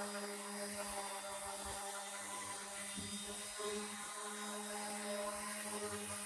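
A motor running steadily at a constant pitch, with a high hiss over it.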